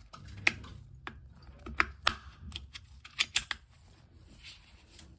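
AA batteries being pushed into the plastic battery compartment of a Hive thermostat: a series of sharp plastic clicks and snaps, most of them in the first three and a half seconds, over low handling rustle.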